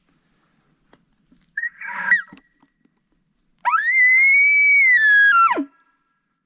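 Elk bugle blown on a handheld bugle tube: a short high squeal, then a long whistle that rises, holds for about two seconds and steps down before dropping sharply at the end.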